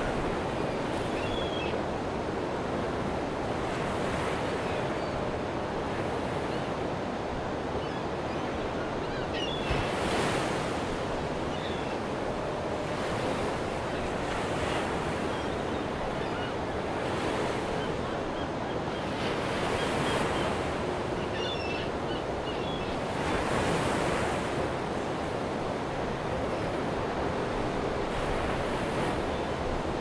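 Ocean surf: a steady wash of waves with a swell breaking every few seconds.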